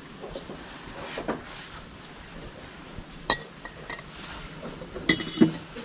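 Glassware clinking as pieces are picked up and knocked together: one sharp clink a little over three seconds in and two more close together near the end, each ringing briefly.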